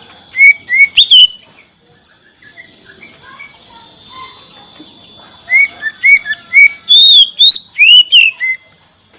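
Oriental magpie-robin (kacer) singing in loud, clear whistled notes: a short group of three about half a second in, then a quick run of arching and rising notes over the last few seconds. Faint steady high-pitched tones run underneath.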